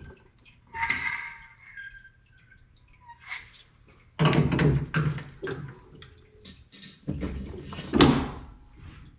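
Metal clunks and scrapes of tooling and parts being handled at a cylinder honing machine. A faint ringing clink comes about a second in, then two bunches of heavier knocks at about four and seven seconds, the loudest just before the end.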